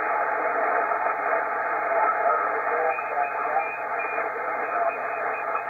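Steady static hiss from an Icom IC-725 HF transceiver's speaker while it receives on 40-metre lower sideband with no station transmitting. The hiss is thin and muffled, cut off sharply at the top by the receiver's sideband filter.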